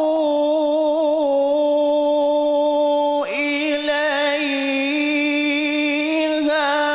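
Male qari's voice reciting the Quran in a melodic style, holding long notes with wavering ornaments. The line breaks briefly about three seconds in, then carries on with a brighter tone.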